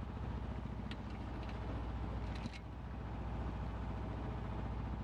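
Boat engine running steadily under way, a low, even drone. There are a couple of faint clicks, about a second in and again about two and a half seconds in.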